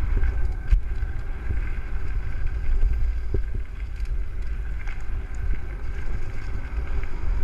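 Wind buffeting the microphone of a camera on a mountain bike riding fast down a dirt trail, over the low rumble of the tyres, with a few sharp knocks as the bike goes over bumps.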